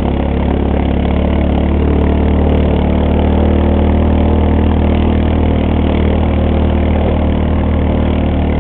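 Four-wheeler (ATV) engine running steadily at an even speed.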